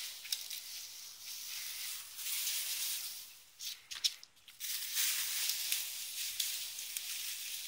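Boxwood hedge leaves and twigs rustling and crackling in bursts as a Lakeland terrier puppy tugs and shakes the branches, with a short lull about halfway through.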